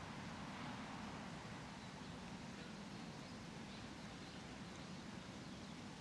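Park ambience: a steady hiss of rustling leaves over a low distant rumble, with a few faint, high small-bird chirps in the second half.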